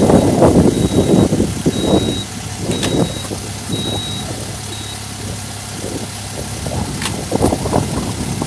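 A vehicle or machine engine running, rough and heavier for the first couple of seconds, then settling to a steady idle. A reversing alarm beeps about five times at an even pace, then stops about halfway through.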